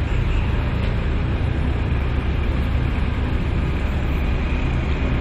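Steady road traffic noise: cars driving past on a worn asphalt road, an even rumble with no single event standing out.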